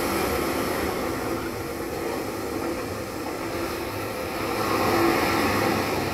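A steady rumbling soundtrack noise with a few faint held tones running through it, no clear rhythm or single event.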